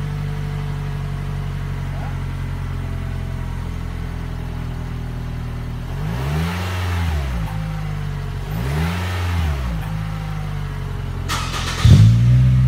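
2017 Toyota Camry's 2.5-litre four-cylinder engine idling through its stock exhaust, then revved twice, each rev climbing and falling back to idle over about a second and a half. Near the end it switches to the same engine idling through an eBay N1-style aftermarket muffler, clearly louder.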